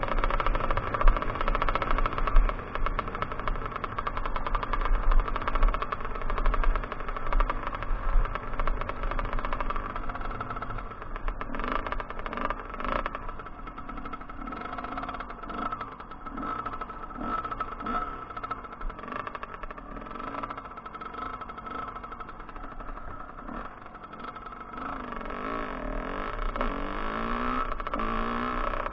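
Kawasaki KX 125 single-cylinder two-stroke dirt bike engine under way, its revs rising and falling again and again as the rider works the throttle. A low rumble of wind and bumps on the microphone is heaviest in the first third.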